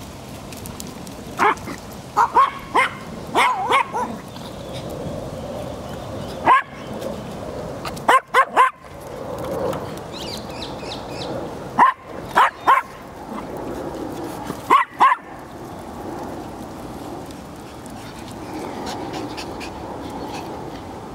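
A dog barking in short, sharp barks, in quick runs of two or three, over about the first fifteen seconds.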